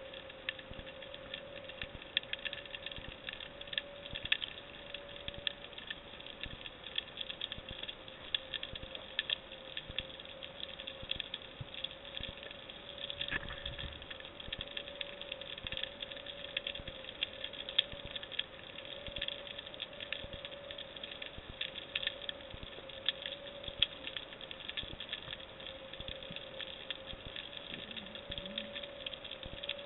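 Underwater ambience heard through a diving camera: a constant dense crackle of fine clicks from the rocky reef, with one steady faint hum underneath.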